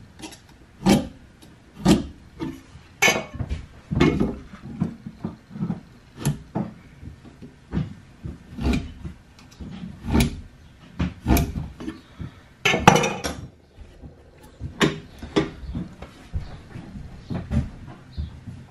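Hand tools knocking and clinking against a wooden leg held in a vise: sharp irregular taps, roughly one a second, some with a short metallic ring, the loudest about two-thirds of the way through. A steel square and a blade are being worked around the wood to score a line where the rotten end will be cut off.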